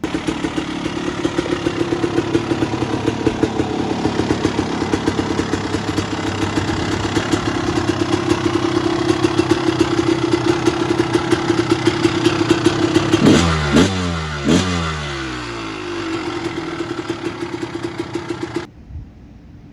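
1998 Honda CR250R's single-cylinder two-stroke engine idling steadily, then revved sharply twice a little past halfway before settling back to idle. It is running without problems.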